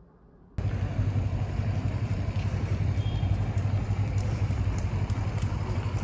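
Near quiet for about half a second, then a sudden cut to a loud, steady low rumble of outdoor noise picked up by a phone microphone on the move.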